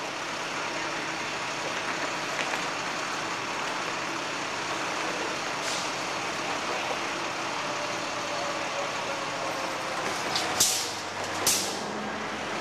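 Steady city street traffic noise, with two short, loud hisses of air brakes near the end.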